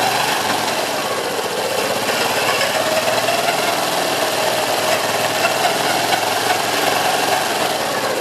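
Honda Cross Cub 110 (JA10)'s air-cooled single-cylinder four-stroke engine running steadily with a continuous fast mechanical rattle: the abnormal noise the bike is being checked for.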